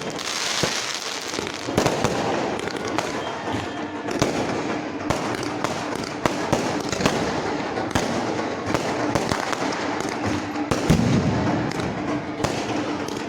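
Fireworks display: many shells and crackers going off in quick succession, a dense run of bangs and crackling with no pause.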